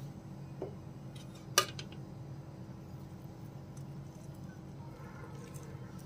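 A metal utensil clinks against an enamel platter: a soft knock, then one sharp, loud clink about a second and a half in, with a few faint taps afterwards, over a steady low hum.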